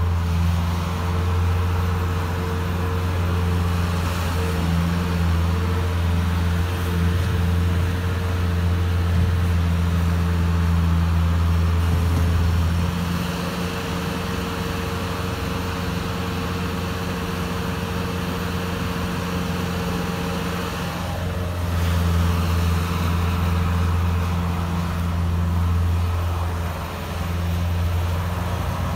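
Bobcat S130 skid-steer loader's diesel engine running steadily while it works snow. The engine note drops about halfway through and comes back up several seconds later.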